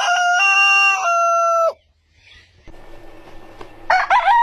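Rooster crowing: a long cock-a-doodle-doo that ends about a second and a half in, then a short quieter gap, and a second crow that starts near the end.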